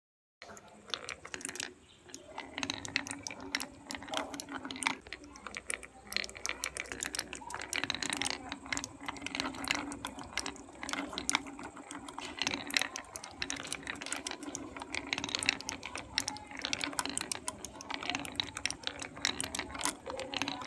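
Glass marbles rolling down a wooden marble-run chute, a steady rolling rumble with a dense stream of irregular clicks and clacks as they hit the pegs and wooden rails. It starts about half a second in.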